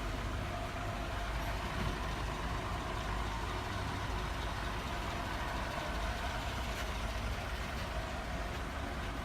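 A bus engine idling steadily, a low rumble with a faint constant hum above it.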